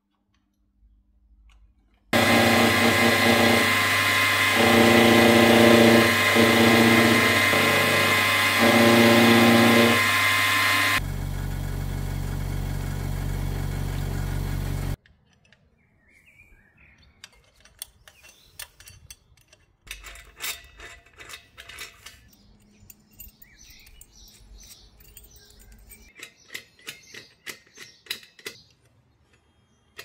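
A power tool runs loudly for about nine seconds, its pitch stepping up and down. A lower, steady machine hum follows for about four seconds and cuts off suddenly. After that come quiet scattered clicks and taps.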